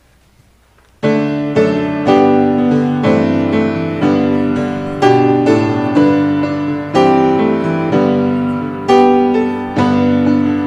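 Piano comes in about a second in with slow, sustained chords, a new chord struck roughly every one to two seconds and ringing on between strikes: the introduction to a sung hymn.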